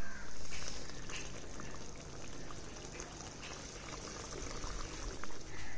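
Thin tangra fish curry with raw mango simmering in a pot on the stove, the broth bubbling with a steady hiss that swells at the start and again near the end.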